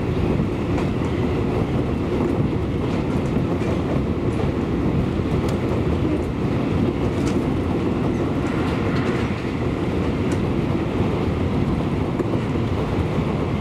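Electric commuter train running at speed, heard on board. Its wheels on the rails make a steady low rumble, with a few sharp clicks scattered through as the wheels pass over rail joints and track work.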